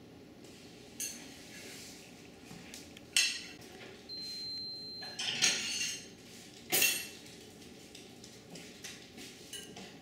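Several sharp clinks and clatters, like dishes or utensils being handled, the loudest about three and seven seconds in, with a brief high steady tone in between.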